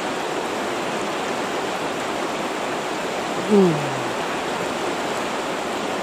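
Steady rushing of a fast-flowing, high river. About three and a half seconds in, a person gives one short, falling murmur.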